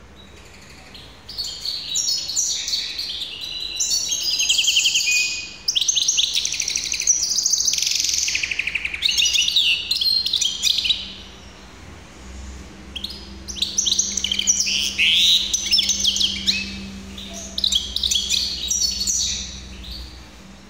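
Caged hybrid finch (mule) singing two long song phrases of fast trills, rattles and twitters. The first runs from about a second in to about eleven seconds, and the second from about twelve seconds until just before the end. A faint steady low hum sits underneath.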